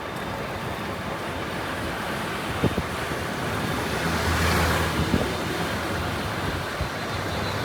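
Steady wind and road noise heard while riding along a city street. A passing vehicle swells up and fades about four to five seconds in, and there are a few brief knocks.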